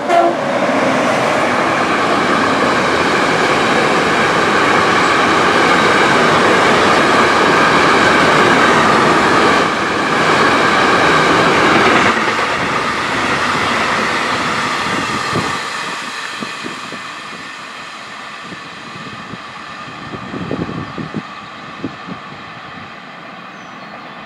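Electric-hauled freight train of tank wagons passing close by: a loud, steady rush of steel wheels on the rails that fades from about two-thirds of the way through as the end of the train goes by and recedes, with a few light knocks near the end.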